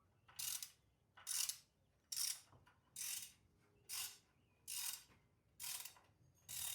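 Hand ratchet wrench being worked back and forth to run down a bolt: about eight short ratcheting clicks, evenly spaced a little under a second apart.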